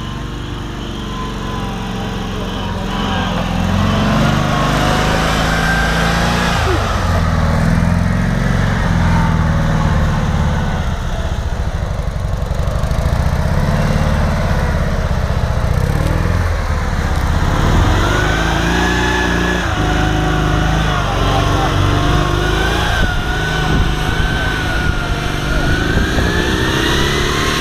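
Steyr-Puch Haflinger's small air-cooled flat-twin engine working hard off-road, its revs rising and falling as it climbs through mud; it gets louder about four seconds in and stays loud.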